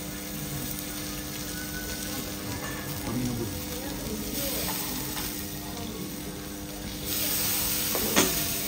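Seafood sizzling on a hot teppanyaki steel griddle. The sizzle grows louder about seven seconds in, as the steel cloche comes off the half lobster, and a single sharp knock follows.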